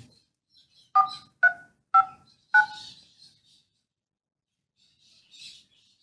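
Four telephone keypad (DTMF) tones, each a short dual-pitch beep, about half a second apart: a conference PIN being keyed in. A faint brief hiss follows near the end.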